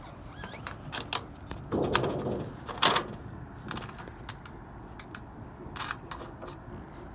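Hand seaming pliers clicking and scraping on a metal roofing panel as its edge is bent over, with the sheet rustling loudly about two seconds in and a sharp metallic snap just after.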